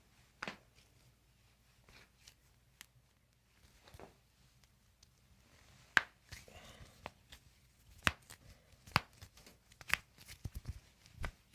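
Handling and movement noises: irregular sharp taps and clicks with light rustling, sparse at first, with the loudest tap about six seconds in and a busier run of taps in the last few seconds.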